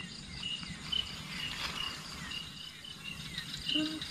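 Crickets chirping at night: short high chirps repeating about twice a second. A brief low pitched sound comes just before the end.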